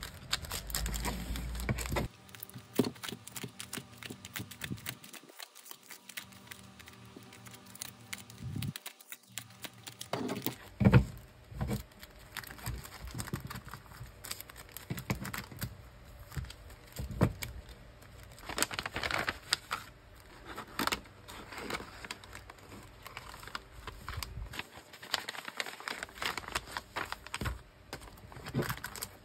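Clear plastic packaging sleeves and paper stationery (memo pads and sticker sheets) being handled on a table: irregular crinkling and rustling of the plastic with light taps, and a sharp knock about eleven seconds in.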